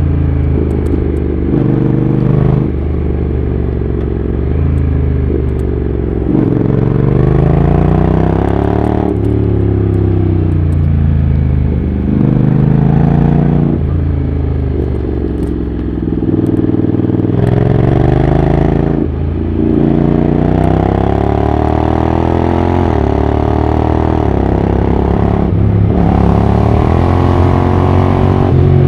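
Honda NC750X's parallel-twin engine running through a Hurric Pro 2 aftermarket exhaust. The revs climb and fall again and again, with sudden drops in pitch as the dual-clutch gearbox changes gear.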